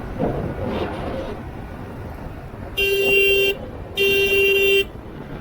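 A vehicle horn honks twice, about three and four seconds in, each a steady single-pitched blast under a second long, over the continuous engine and road noise of a motorcycle ride in traffic.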